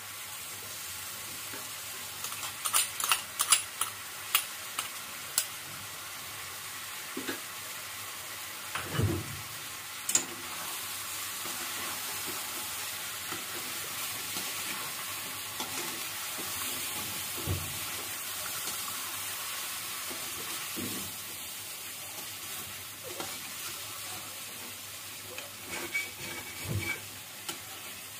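Chicken pieces in spiced yogurt masala sizzling in a metal kadhai on the stove, stirred with a perforated metal spatula. Sharp clinks of the spatula against the pan come in a cluster about three seconds in and again near the end.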